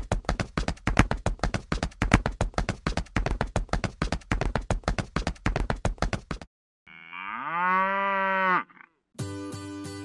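Rapid clip-clop of cattle hooves, about seven sharp clicks a second, as a sound effect for toy cows walking, which stops after about six seconds. Then a cow moos once, a long call that rises in pitch and holds, and music comes in near the end.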